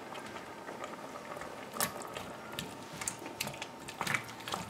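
A silicone spatula stirring chunks of pumpkin and potato in a stainless steel pot, giving a few light, scattered knocks and scrapes against the pot over a faint steady hiss.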